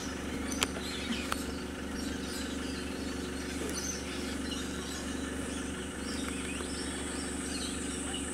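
A car engine idling gives a steady low hum under a steady high insect buzz, which grows stronger near the end. A sharp click comes about half a second in, with a few faint chirps scattered through.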